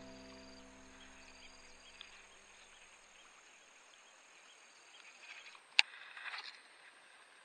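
The tail of background music fades out over the first few seconds, leaving faint outdoor ambience with insects chirping. About six seconds in there is a single sharp click and a brief rustle as the camera is handled.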